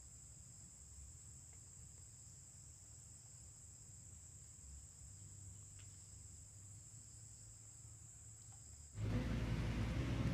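Insects, most likely crickets, making a steady high continuous chirring. About nine seconds in it cuts off abruptly and a much louder low rumbling noise takes over.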